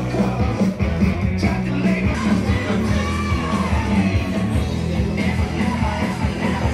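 Rock music playing, with a singer's voice over a steady bass.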